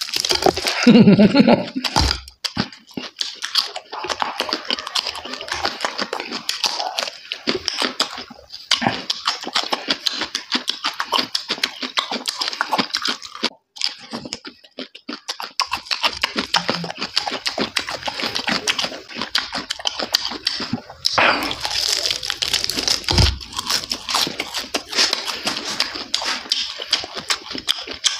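Close-up chewing and crunching of crispy roasted pork fat, with wet smacking and sucking at the lips as meat is pulled off the bone. It comes as a dense, uneven run of small crackles with brief pauses between bites.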